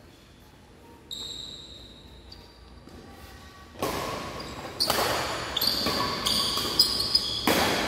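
Badminton rackets striking the shuttlecock in a fast rally: several sharp smacks about once a second, starting about halfway through, each followed by a ringing echo in a large hall.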